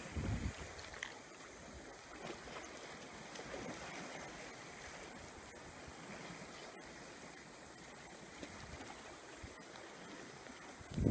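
Calm sea water lapping and sloshing, with light wind. A low buffet hits the microphone at the very start and again at the end.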